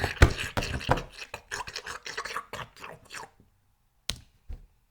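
Improvised foley eating sound recorded close to the microphone: rapid, irregular crunching, chewing-like noises meant as a wolf gruesomely devouring its prey, stopping about three seconds in. A sharp click and a soft knock follow near the end.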